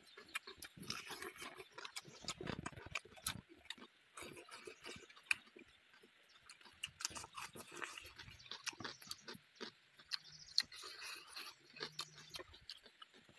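Close-up chewing and lip-smacking of a person eating with his fingers: an irregular run of wet clicks and smacks.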